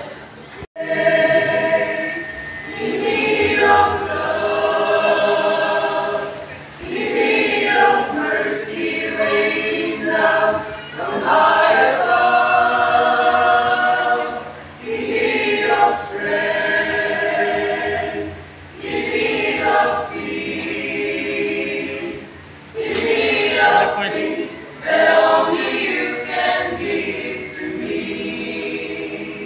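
Mixed church choir of men and women singing a hymn, line by line with short breaths between phrases.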